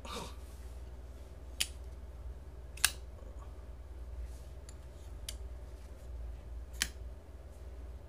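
Titanium frame-lock flipper knife, a Shirogorov 111 copy, being flicked open and shut with gloved hands. It gives sharp metal clicks as the blade fires out and locks, and as it snaps closed: four clear clicks a second or more apart, the loudest about three seconds in.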